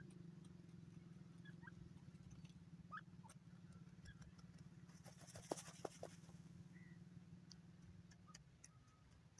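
Near silence: a low, steady background hum with a few faint, short chirps scattered through it, and a brief patch of hiss with a few clicks about five and a half seconds in.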